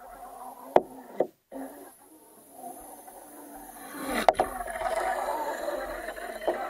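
Muffled water churning heard through an action camera's waterproof housing underwater, with sharp knocks just under a second in and again about four seconds in. It grows louder in the second half as the RC boat's wake passes overhead.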